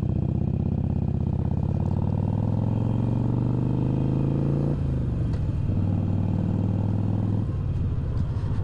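Harley-Davidson Iron 883's air-cooled V-twin engine accelerating, its pitch rising for about five seconds, then dropping suddenly as it shifts up a gear; it holds steady and drops again near the end.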